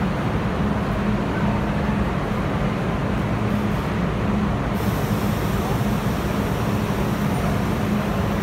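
R32 subway train standing in the station with a steady hum and low rumble. Its doors slide shut in the second half, and a high hiss joins about halfway through.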